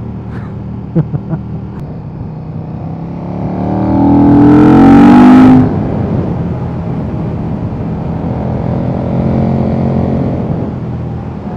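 KTM 1290 Super Duke R's V-twin engine under way: about four seconds in it revs up hard with a rising pitch, then cuts off sharply just past the middle, after which it pulls on more steadily and slowly builds again.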